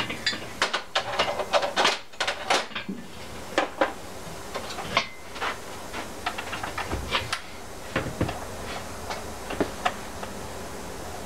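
Irregular clicks, knocks and clatter of hand tools and small parts as covers are taken off a bare Evinrude V6 outboard powerhead.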